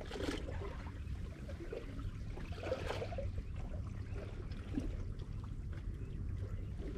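Shallow seawater lapping and gurgling among rocks at the shoreline, with small splashes just after the start and again about three seconds in, over a steady low rumble.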